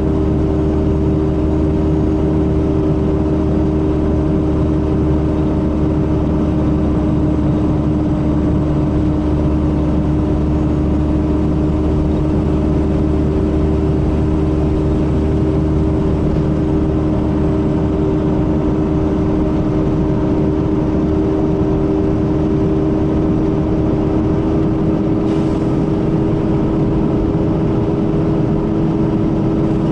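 Mercedes-Benz O500RS coach's rear-mounted diesel engine running steadily under way, its pitch holding almost constant. Its engine note sounds like that of the older O400RSE.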